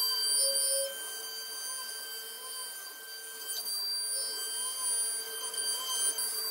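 CNC router spindle whining steadily at a high pitch while its 6 mm end mill pockets Merbau hardwood. A softer tone rises and falls over and over as the machine moves along the curves.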